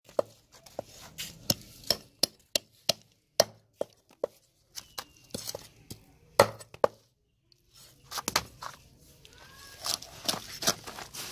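Heavy blade chopping through large raw fish on a round wooden chopping block: sharp, irregular chops about two a second, pausing briefly a little past halfway, then carrying on.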